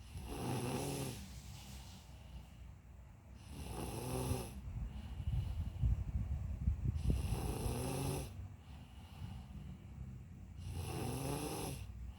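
A person snoring, four pitched, rattly snores about a second long each, coming roughly every three and a half seconds. Some low thuds are heard around the middle.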